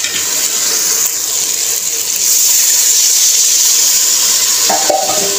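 Water poured into a hot pot of fried potatoes and peas, hissing and sizzling as it hits the hot oil and spices; the hiss gets louder about two seconds in.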